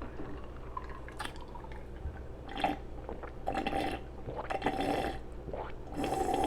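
Wet, close-up mouth sounds of eating a burger: smacking and chewing, in several short bursts in the second half.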